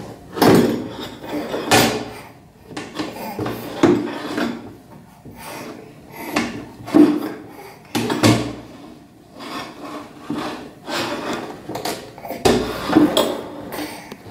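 A baby's hands knocking and scraping a plastic step stool and potty on a tiled floor: irregular knocks a second or more apart, with rubbing in between.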